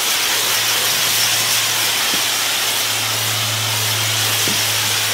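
Water spraying from a garden hose nozzle onto a slate rubble-stone wall, a steady hiss with a low hum underneath, pre-wetting the joints so the mortar does not dry out too fast.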